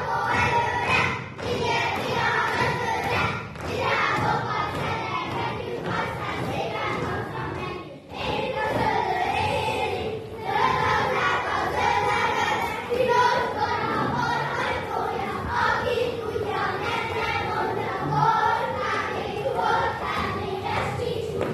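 Group of children singing a Hungarian folk song together while dancing, their shoes stamping and thudding on a wooden stage floor, with a violin playing along.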